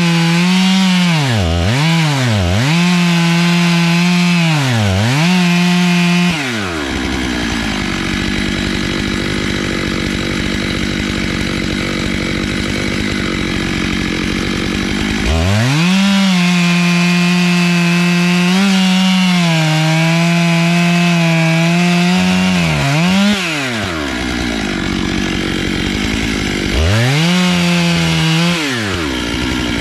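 Stihl MS 661 two-stroke chainsaw on a small log mill running at full throttle through a log, its engine pitch dipping briefly and recovering several times as the chain loads in the wood. Three times it drops off full throttle to a lower, rougher running before revving up again.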